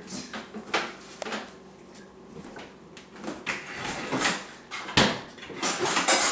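Kitchen handling sounds: a refrigerator door being shut and a container set down and handled on a countertop. A series of clicks and knocks, the sharpest knock about five seconds in and a brief clatter near the end.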